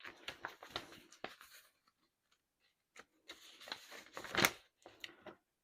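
Packaging being handled: crinkling and rustling in two spells, with a sharper crackle about four and a half seconds in.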